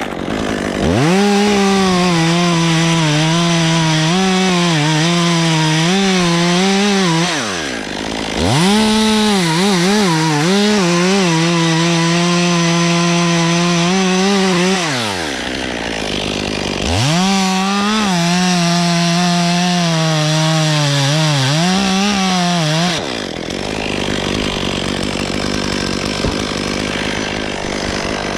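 Two-stroke chainsaw revved up into a cut three times, its pitch dipping and wavering under load in the wood, dropping back between cuts and running lower near the end.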